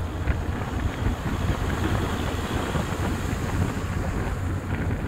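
Wind buffeting the microphone over a steady low rumble of road and engine noise from a moving vehicle.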